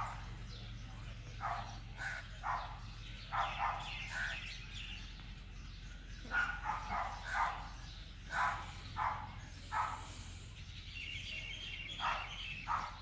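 Short animal calls repeated every half second to a second, with a higher bird-like chirping trill coming in near the end.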